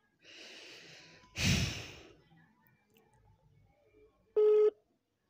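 A breath in followed by a loud exhale close to the microphone, then about four seconds in a short electronic beep from a mobile phone as a call is placed.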